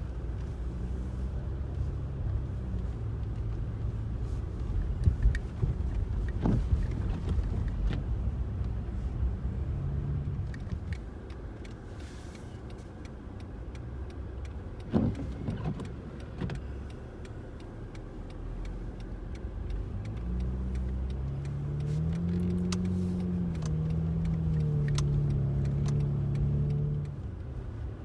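Car driving, with steady engine and road noise; the engine note rises and falls several times near the end, with a few sharp knocks along the way.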